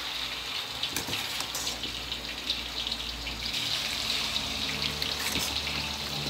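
Marinated chicken frames deep-frying in hot oil in a steel wok as pieces are lowered in: a steady sizzling hiss with a few sharp crackles.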